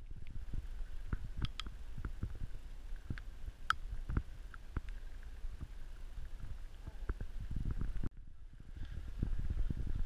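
Low, uneven rumbling and thumping of handling and wind noise on a handheld camera's microphone as it is carried along, with scattered light clicks. The sound thins out briefly about eight seconds in.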